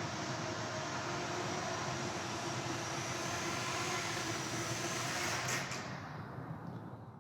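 Small FPV quadcopter's motors and propellers whirring steadily in flight, with a high whine over a broad hum, fading about six seconds in.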